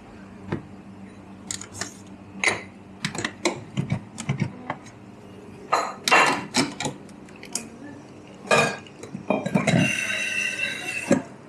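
Cups, saucers and utensils clinking and knocking as coffee service is handled: a run of sharp, irregular clinks and knocks. Near the end there is a hiss lasting about a second and a half.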